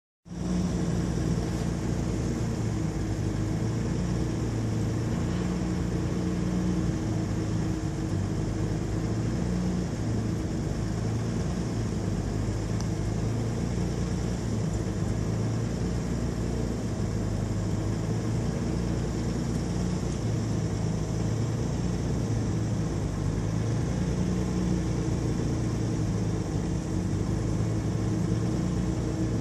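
Jaguar E-Type's inline-six engine idling steadily.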